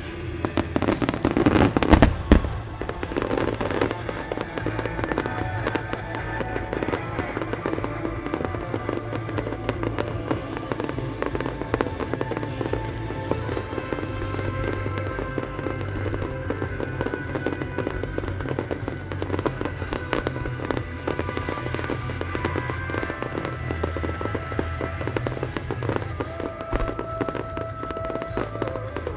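A star mine barrage of large firework shells launching and bursting in quick succession, with dense crackling and the loudest bangs about two seconds in. Music plays underneath throughout.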